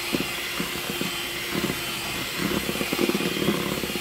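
Old electric hand mixer running steadily, its beaters whipping eggs and sugar toward the ribbon stage, with irregular knocking of the beaters against the plastic bowl.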